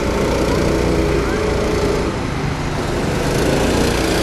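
Small petrol go-kart engine running steadily.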